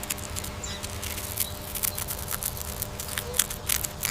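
Rat sounds: irregular sharp clicks and scratching, with a couple of faint high squeaks.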